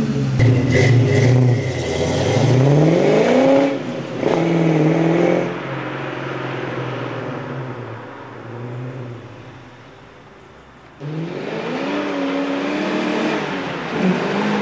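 Ford Mustang V8 with an aftermarket exhaust accelerating hard away: the engine note climbs, breaks at a gear shift about four seconds in, then holds steady and fades with distance. About eleven seconds in it cuts back in loud, with the engine revving up and down as the car comes back toward the listener.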